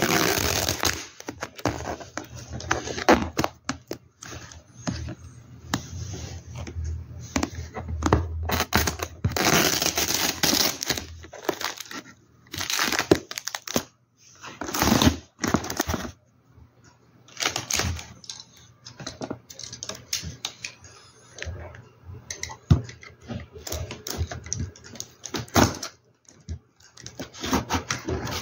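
Unboxing: tape and a box seal being torn, with cardboard packaging and paper rustling and crinkling as it is handled. The sound comes in irregular bursts of tearing and rustling with short pauses between them.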